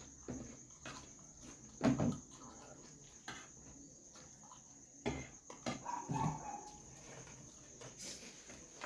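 Steady high-pitched insect chirring, most likely crickets, with eating noises: a few sharp knocks about two and five seconds in, and softer mouth and utensil sounds in between.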